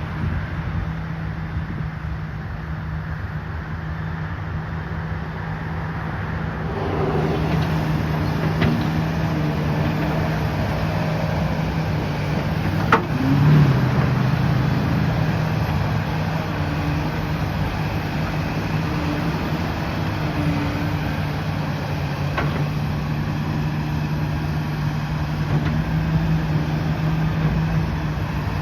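Heavy diesel engine running steadily. It grows louder about seven seconds in and swells briefly about halfway through, with a few sharp knocks or clicks over the running.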